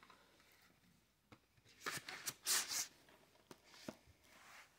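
Plastic DVD case being handled: a few light clicks and brief rustling and scraping of the plastic in the middle, then a couple more soft clicks. Quiet overall.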